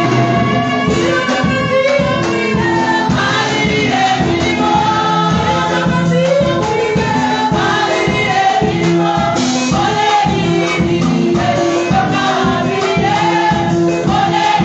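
A women's choir singing a gospel song, with amplified lead voices over instrumental accompaniment and a steady beat.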